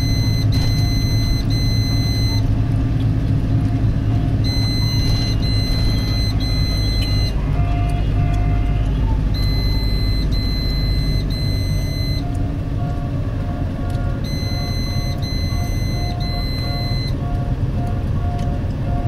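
Vehicle running slowly, a steady low rumble of engine and tyres on a wet road. Over it a high electronic warning beep sounds three times in a row, repeating about every five seconds, and from about halfway a lower tone pulses about twice a second.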